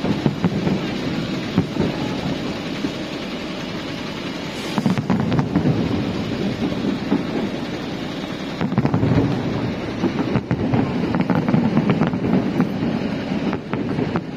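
Fireworks display: a continuous rumble of booms overlaid with crackling, the sharp cracks coming thickest about a third of the way in and again through the second half.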